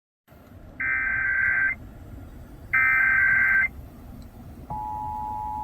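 Emergency Alert System test coming in over a radio through background hiss: two SAME header data bursts, each about a second of warbling high tones, then about 4.7 s in the steady two-tone EAS attention signal begins.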